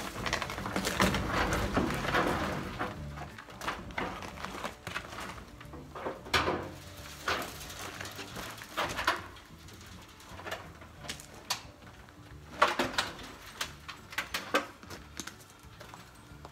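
Wooden mobile chicken coop frame being tipped over onto its back on gravel: a scraping, shuffling stretch in the first couple of seconds, then scattered knocks and clunks of wood.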